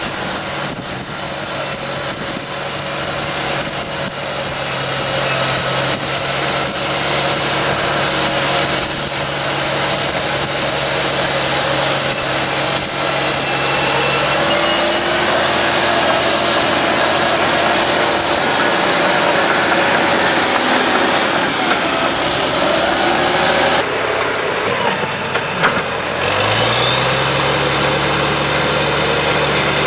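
Caterpillar D6C crawler dozer's diesel engine running hard under load while the blade pushes a mound of dirt. The engine note dips briefly near the end, then climbs back with a rising high whine.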